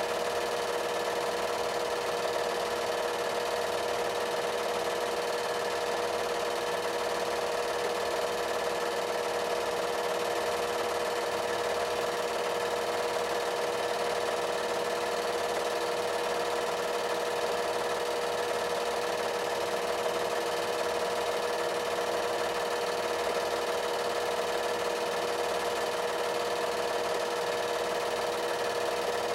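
An 8mm film projector running: a steady mechanical whir with a constant hum and hiss, unchanging throughout.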